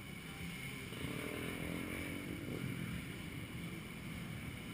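Motocross bikes running on the track at a distance, a low steady rumble with one engine note rising and falling about a second in.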